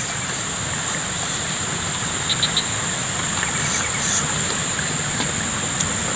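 Insects chirring steadily at a high pitch, over a low steady rumble, with a few faint clicks about two and a half seconds in.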